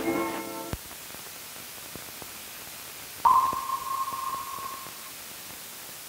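The closing chord of an old film's music score stops with a click under a second in. It leaves the hiss and crackle of a worn film soundtrack. About three seconds in, a single high tone sounds and fades away over nearly two seconds.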